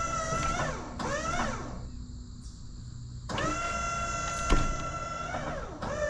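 Wood-Mizer sawmill's hydraulic system whining in spurts as the log turner and clamp are worked. The pitch sags and rises as each control is pushed and released, with a pause in the middle, then a longer steady run with one sharp knock. The mill's engine runs underneath.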